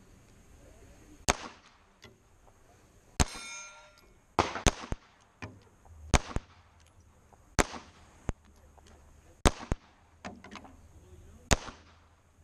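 A string of pistol shots at steel plate targets, about a dozen at uneven gaps of half a second to two seconds. Some hits bring a metallic clang from the steel, and one plate rings on for most of a second about three seconds in.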